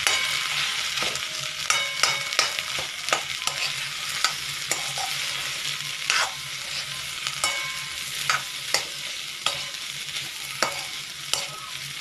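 A metal spoon scrapes and knocks irregularly against a kadhai, stirring spiced potato and pea samosa filling, with a few short ringing scrapes. Under it runs the steady sizzle of the filling frying in the hot pan.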